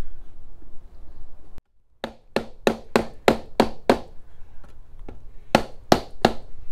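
Rubber mallet tapping on the collar of a stainless steel chimney pipe to adjust its fit. Seven quick taps come about three a second, then after a short pause three more.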